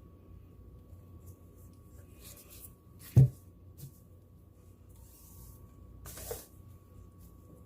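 Quiet handling sounds: faint scrapes and rubbing, with one sharp knock a little over three seconds in, the loudest sound, and a short hiss and a smaller knock near the end.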